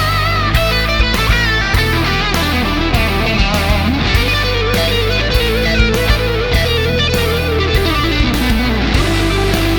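Overdriven electric guitar playing a lead melody with wide vibrato and bends, through the BSM Starbreaker tube power-amp simulator pedal, over a rock backing of bass and a steady drum beat.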